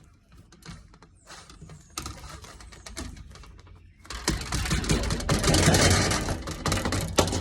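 Slime mixed with shaving cream being squished and worked by hand, a wet crackling squelch made of many small pops. It starts soft and becomes much louder and denser about four seconds in.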